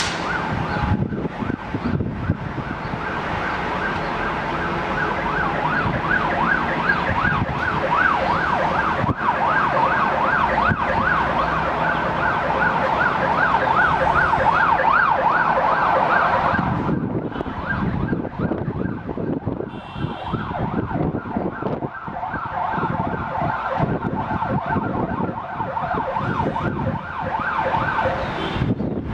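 Fire engine siren wailing in a fast yelp, rising and falling about three times a second. It is loudest in the first half and carries on more faintly after about seventeen seconds.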